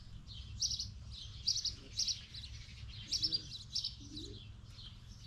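Small birds chirping: a string of short, high chirps, several notes a second, over a low steady hum.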